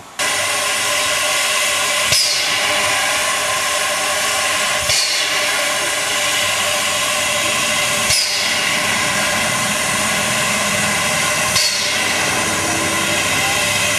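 Narrow-gauge steam locomotive 99 773 standing with steam up, giving off a loud, steady hiss of steam, with a brief sharp sound about every three seconds.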